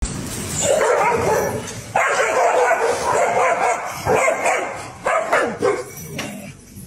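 A golden retriever and a corgi barking at each other in several loud bouts, the barking dying down near the end.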